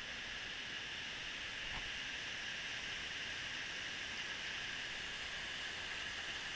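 Steady rushing of flowing creek water, an even hiss that neither rises nor falls.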